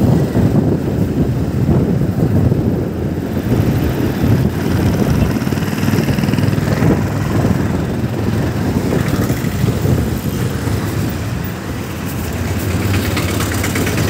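Motorcycle engine running while riding along a road at moderate speed, with a heavy, fluctuating rumble of wind on the microphone and the sound of passing traffic.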